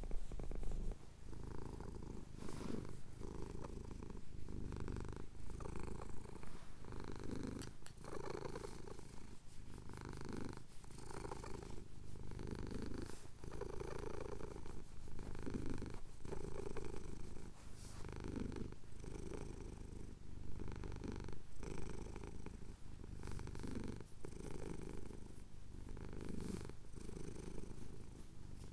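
Domestic cat purring steadily while having its chin scratched, the purr swelling and fading with each breath about once a second.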